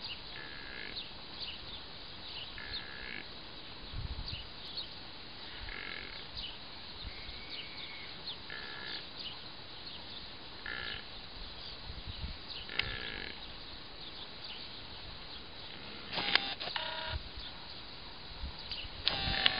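Short, high animal calls repeating about every two to three seconds, over faint scattered chirps. A louder, rougher call comes about sixteen seconds in, and another at the very end.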